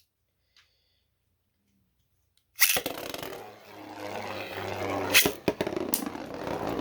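Near silence, then about two and a half seconds in a sudden start of 3D-printed Beyblade tops spinning and scraping around the stadium, with sharp clacks as they strike each other.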